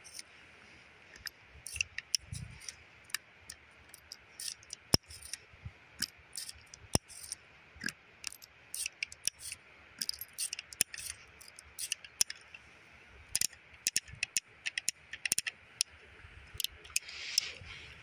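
Heritage Rough Rider single-action .22 revolver being cleared by hand: many sharp metallic clicks and ticks at an irregular pace as the cylinder is turned notch by notch at the open loading gate and the spent .22 LR cases are pushed out. A brief soft rustle near the end.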